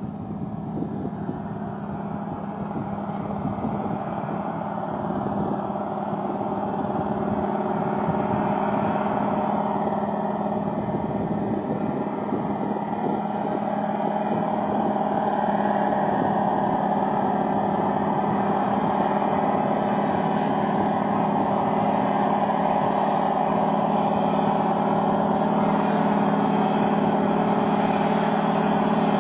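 De Havilland Beaver floatplane's engine and propeller at full power on its takeoff run across the water, a steady drone growing gradually louder as the plane approaches.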